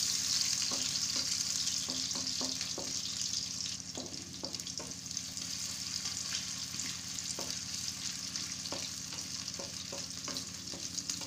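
Sliced onions sizzling in hot oil in a kadhai, stirred with a spoon that clicks and scrapes against the pan now and then. The sizzle is loudest at first and settles a little after about four seconds.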